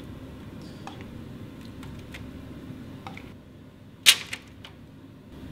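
Spoon and saucepan knocking against aluminium foil trays as food is spooned into them: a few light clicks, then one sharp clack about four seconds in.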